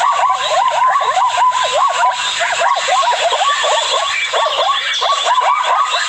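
Zebras calling: a fast, continuous run of short, overlapping bark-like calls, several a second.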